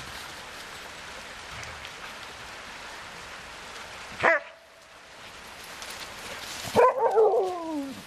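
Huskies at play vocalising: a short sharp yelp that drops in pitch about four seconds in, then a longer whining cry near the end that slides steadily downward.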